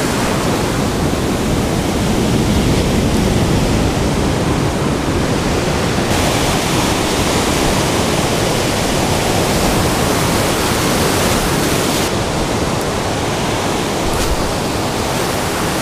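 Ocean surf breaking and washing over a rocky shore: a loud, steady rush of whitewash.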